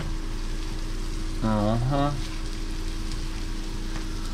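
Seasoned tuna steaks frying in butter in a hot ridged grill pan, a steady sizzling hiss. A man's voice gives two short hums about a second and a half in.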